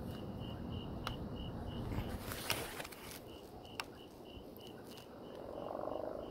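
A cricket chirping in a steady, rapid pulse of about four or five chirps a second over low background noise. A few faint sharp clicks come about one, two and a half and four seconds in.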